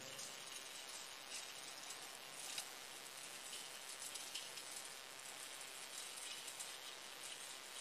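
Faint, steady hiss with a few light ticks scattered through it. This is the background noise of a patrol car's dash-camera audio track.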